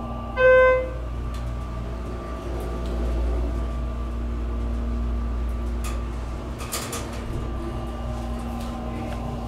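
A Schindler 330A hydraulic elevator chimes once with a single bright ding, then the car gives a steady low rumble and hum as it runs, with a brief rattle about seven seconds in.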